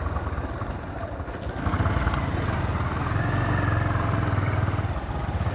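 Motorcycle engine running on the move, a steady low hum that eases off briefly and then picks up again about a second and a half in.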